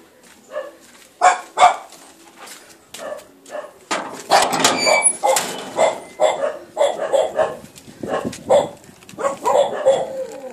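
A dog barking repeatedly: two sharp barks a little over a second in, then a fast run of barks from about four seconds on.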